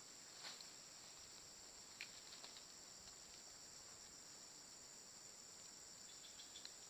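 Insects trilling steadily, faint and high-pitched, with a few soft ticks.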